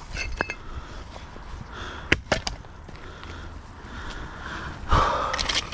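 Sharp knocks and clinks of scrap metal pulled up by a magnet, two close together about two seconds in, then a short scraping rush near the end.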